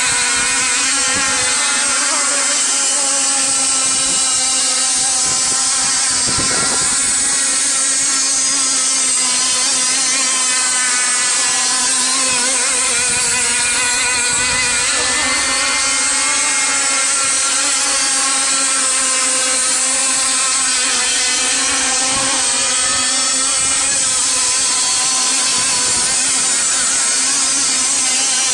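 Small two-stroke engine of a radio-controlled racing boat running at high revs: a steady, high-pitched buzzing whine that wavers slightly in pitch.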